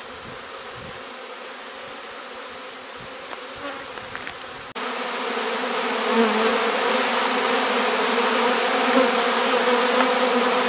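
A swarm of honeybees buzzing around a hive as the shaken-in bees gather and go inside. The steady buzz jumps suddenly louder about five seconds in and holds there.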